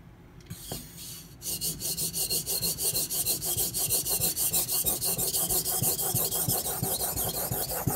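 Steel knife blade scrubbed rapidly back and forth on a Suehiro SKG-27 combination whetstone: an even, fast rasping of several strokes a second, starting about a second and a half in.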